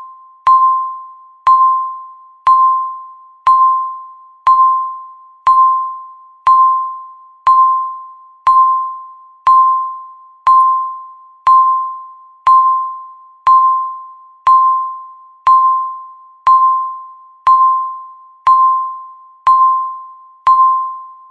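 Countdown timer beeping once a second: a single-pitched electronic ding with a sharp start that fades quickly, repeated about twenty times in an even rhythm.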